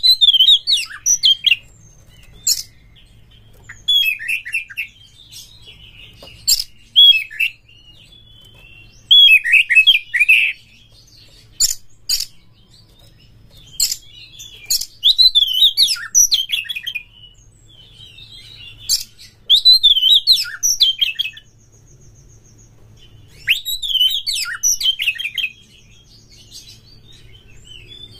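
Oriental magpie-robin singing: bursts of rapid, varied high whistled phrases every few seconds, with sharp ticks between them.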